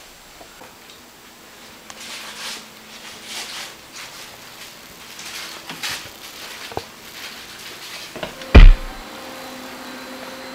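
Faint shuffling and handling noises, then one loud thump about eight and a half seconds in, followed by a faint steady hum.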